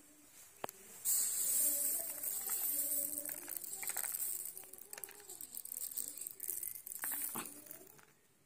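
Dry okra seeds being scooped by hand and trickling through the fingers: a rustling, pattering hiss that starts suddenly about a second in and fades near the end, with a few sharp ticks.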